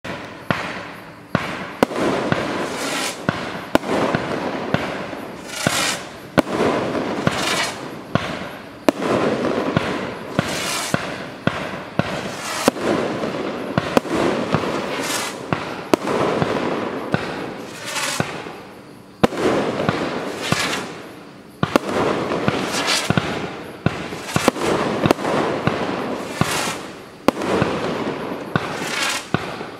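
A multi-shot firework cake firing shot after shot, about one to two a second: sharp bangs as each shot launches and bursts, with hissing and crackling from the tails, strobes and crackle effects between them.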